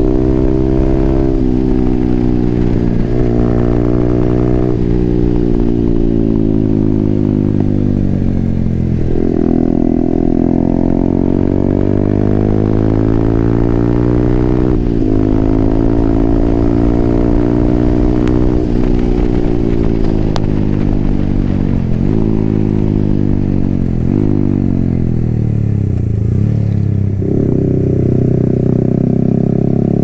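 Yamaha R15M's single-cylinder engine through an SC Project aftermarket exhaust, ridden hard: the engine note climbs and falls again and again, broken by short sudden dips at the gear changes.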